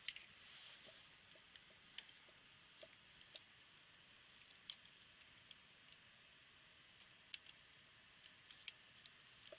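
Near silence: room tone with about a dozen faint, scattered clicks and taps, the clearest about two, five and seven seconds in.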